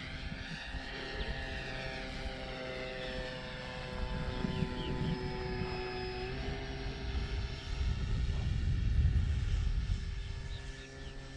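Twin electric motors and propellers of an E-flite Beechcraft D18 RC plane in flight: a steady whine that shifts in pitch about six seconds in as the throttle changes. A low rumble of wind on the microphone runs under it.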